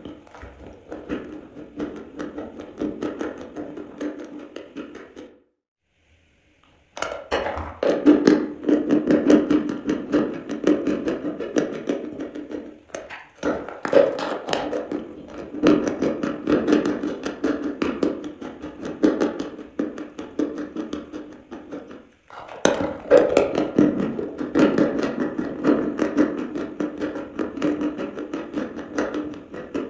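Close-up crunching of dry chalk being bitten and chewed, a dense run of small crackles and snaps. It drops out for a moment about six seconds in, then resumes.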